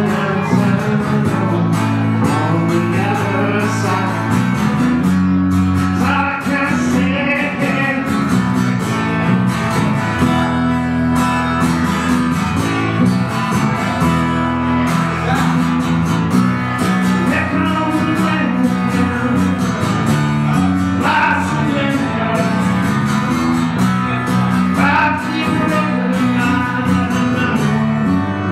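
Live acoustic guitar music, a song played with changing bass notes and a melody line above them.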